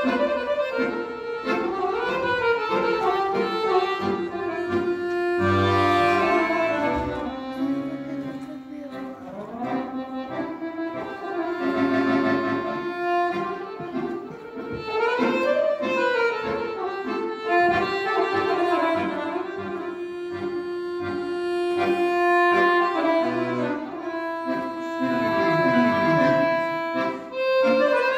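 Solo accordion played live: quick runs sweeping up and down between held notes and chords, over a sustained bass line.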